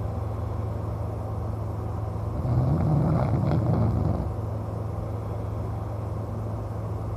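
A man snoring in deep sleep: one long, rough snore swells about two and a half seconds in and fades out under two seconds later, over a steady low hum.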